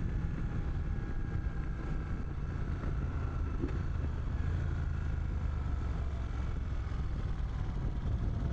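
Moto Guzzi motorcycle engine running steadily under way on a mountain climb, heard from the bike with wind rushing over the microphone.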